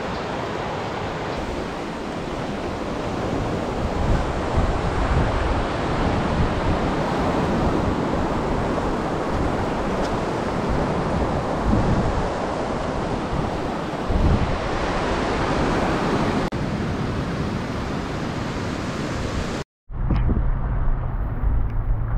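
Fast brown floodwater rushing down a walled channel and river: a steady, dense rush of water. About twenty seconds in it cuts off abruptly, and wind buffets the microphone with a low rumble.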